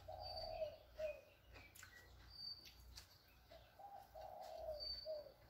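Doves cooing outdoors, a phrase of several low notes heard twice, about three and a half seconds apart. Short high chirps from sparrows come between the phrases.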